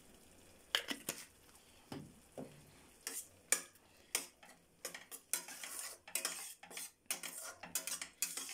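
Metal spatula scraping and clinking against a stainless-steel kadhai while stirring thick tomato sauce. It starts about a second in with scattered strokes, which get quicker and busier in the second half.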